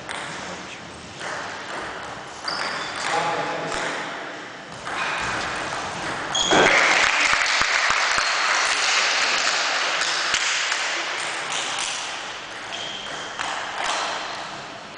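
Table tennis ball clicking against the bats and table during play, then about six and a half seconds in a shout followed by several seconds of clapping and voices in an echoing gym hall.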